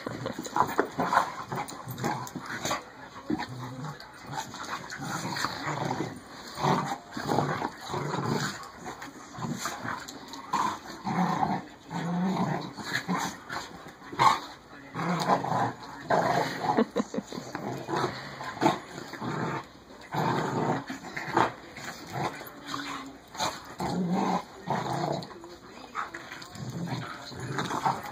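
Dogs play-fighting, growling in short irregular bursts throughout.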